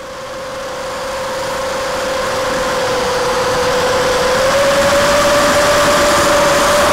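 Quadcopter's brushless motors (DYS BE1806 2300kv) and 5-inch props giving a steady whine, growing louder over the first few seconds and stepping up slightly in pitch about four and a half seconds in.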